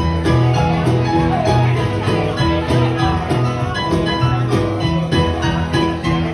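Live acoustic guitar and electronic keyboard playing together, with held low keyboard notes repeating in a steady rhythm.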